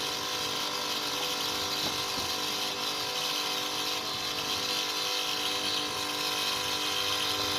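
Electric motor of a wood mortising machine running steadily, a continuous hum with a hiss of noise over it.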